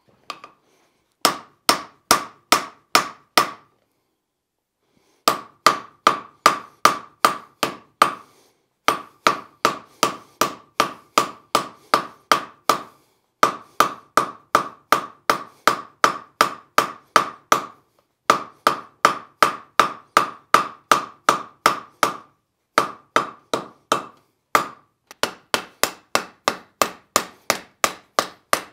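Hand hammer striking a hot steel bar on a steel anvil in runs of steady blows, about two to three a second, each with a short metallic ring, with brief pauses between runs: the forged bar is being straightened.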